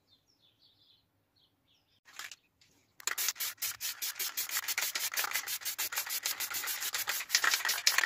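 Aerosol can of spray varnish hissing as it sprays, the hiss fluttering in fast pulses, starting about three seconds in after a brief puff near two seconds.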